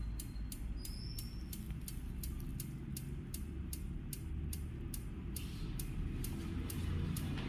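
Motorcycle engine idling with a low rumble, over which a steady ticking runs at about three ticks a second, the 'tick tick tick' that is called loud.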